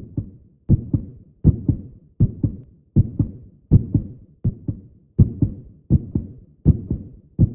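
A steady rhythm of paired low thumps, one pair about every three-quarters of a second, each thump dying away quickly.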